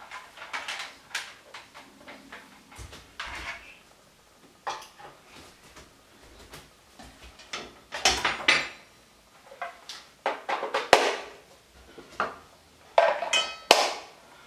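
Kitchen utensils being handled as an electric hand mixer and its metal beaters are got out: irregular clicks, knocks and clatters, with a few sharp ringing metal clinks near the end.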